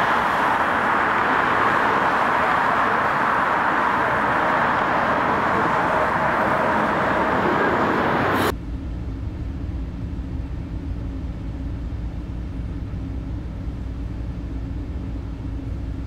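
Steady street traffic noise, a loud even hiss, cutting off abruptly about eight seconds in. A lower, deeper rumble with a faint steady hum follows.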